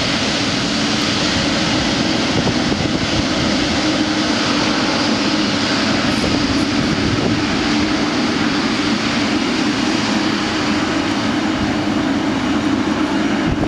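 Boeing 777's twin turbofan engines running steadily, an even jet noise with a constant low hum underneath.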